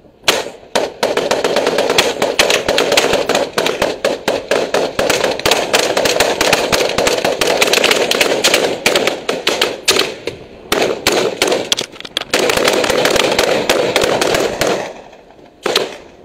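Rapid rifle fire from the security guards on a cargo ship, shots coming close together and overlapping in sustained volleys, with a short lull near the end before a few more shots.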